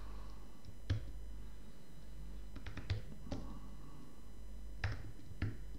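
A few isolated keystrokes on a computer keyboard, about half a dozen separate clicks spaced irregularly, over a low steady hum.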